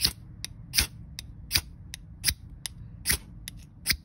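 The tip of an Ozark Trail bait knife's blade is scraped down a ferrocerium rod again and again to strike sparks: a sharp rasping strike about every three-quarters of a second, with lighter ticks in between.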